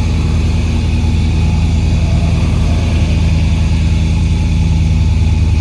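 Dodge Ram 5.7 L V8 engine idling steadily. The engine carries a cylinder 5 misfire code, which the mechanic puts down to low compression on that cylinder.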